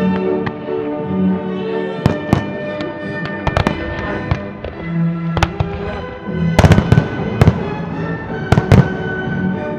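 Aerial firework shells bursting with sharp bangs over a music soundtrack. The bangs come scattered at first, then in a loud cluster of several close together about two-thirds of the way in, with a few more near the end.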